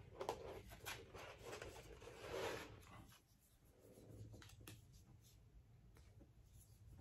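Faint rustling and scraping of paper and cardboard perfume packaging handled by hand, with a few soft clicks.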